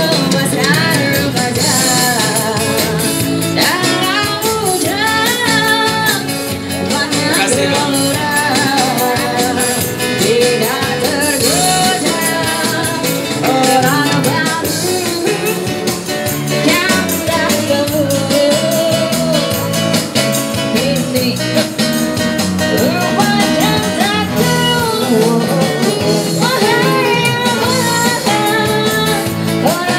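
Live street band performing a song: singers' voices over acoustic guitar and bass guitar, amplified through a small PA.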